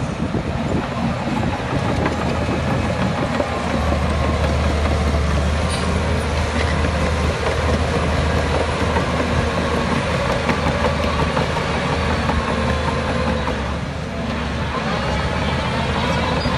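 Heavy diesel engine of earthmoving machinery running steadily as a deep drone. The drone grows stronger about four seconds in and eases briefly near the end.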